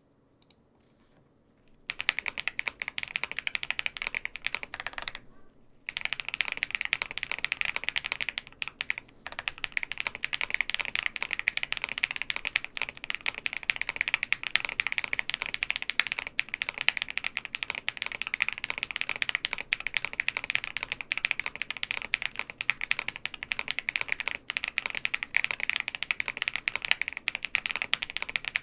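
Fast, continuous typing on a Meletrix Zoom75 mechanical keyboard with Wisteria tactile switches and all its dampening foams installed. The typing starts about two seconds in and stops once, briefly, a little after five seconds.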